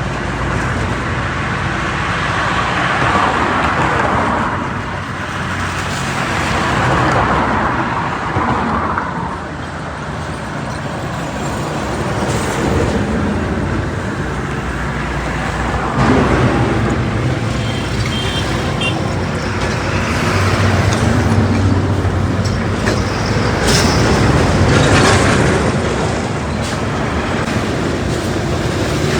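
Highway traffic going by: vehicles pass one after another, each swelling and fading, with the hum of heavy engines under the rush of tyres.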